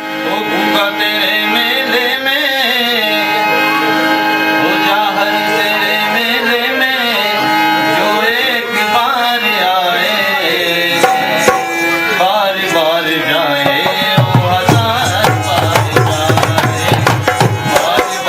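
Devotional bhajan music: a wavering melody over a steady held drone, with hand-drum strokes coming in about fourteen seconds in and keeping a quick rhythm.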